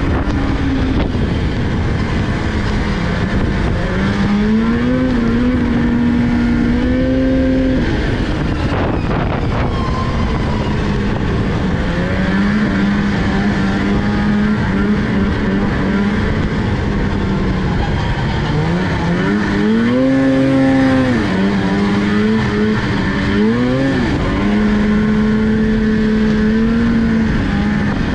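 Snowmobile engine running at trail speed, heard from the rider's seat, its pitch rising and falling several times as the throttle is opened and eased, most clearly about a sixth of the way in and again about two-thirds of the way through.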